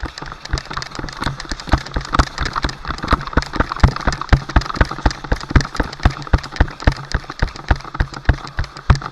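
Rapid, uneven sharp knocks and clicks, about five a second, over a steady low hum.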